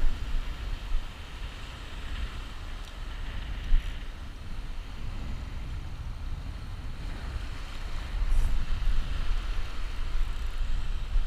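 Wind buffeting the microphone over the steady hiss and wash of breaking surf, the wind gusting harder near the end.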